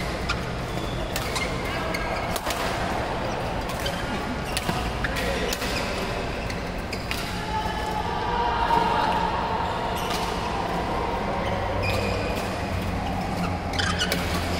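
Badminton rackets striking shuttlecocks, sharp irregular cracks, over the steady din of a large sports hall with play on many courts.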